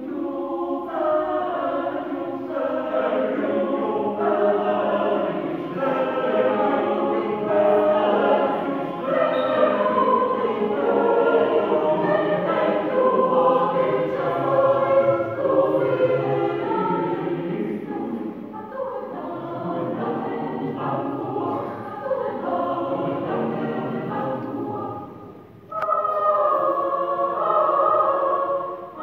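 A choir singing, with a brief drop about 25 seconds in before the voices come back louder.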